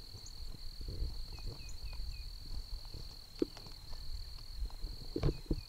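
An insect trilling steadily at a high pitch, with a brief break now and then. Faint short falling chirps repeat in runs of four or five, over a low rumble and a few soft knocks.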